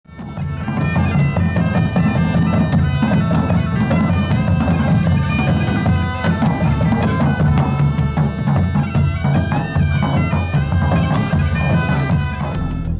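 Bagpipes playing a medieval-style tune over their steady drones, with a large rope-tensioned bass drum struck with a mallet on a regular beat, a little under one stroke a second. The music fades in at the start.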